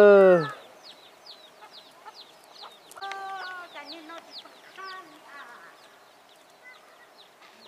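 Chickens clucking: a few short calls about three to five seconds in, over frequent high, quick falling peeps. A loud held voice note trails off about half a second in.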